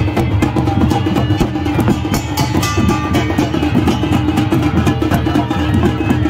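Loud traditional festival drumming: fast, dense beats with sharp clicks over a steady tone underneath.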